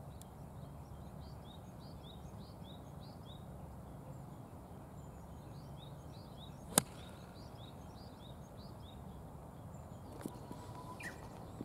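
A golf iron strikes the ball with one sharp crack about seven seconds in. Behind it, small birds keep repeating short rising chirps.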